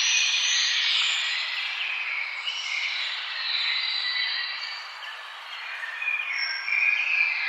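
Many birds chirping and singing at once in a dense, overlapping chorus of short high calls over a steady hiss.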